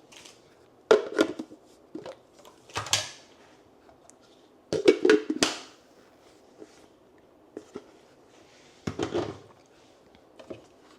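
Plastic lid and parts of a Ninja Creami Swirl ice cream maker being handled and fitted together: scattered clacks and knocks, a few in quick clusters, with quiet gaps between.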